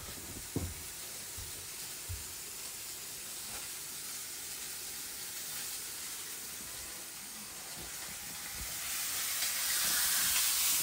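Food sizzling in a hot frying pan on the stove: a steady hiss that grows louder near the end.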